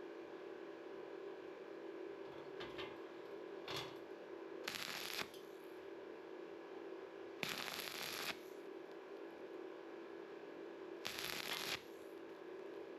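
Stick-welding arc crackling in short stitches, three main bursts each under a second and a few seconds apart, with two faint brief crackles before them: a 6013 electrode at 90 amps tacking onto a bare filler electrode laid in the joint of thin sheet metal. A steady hum runs underneath.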